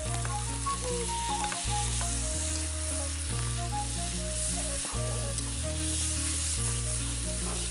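Grated onion frying in hot oil in a large kadhai: a steady sizzle as it is stirred with a metal spatula, with background music under it.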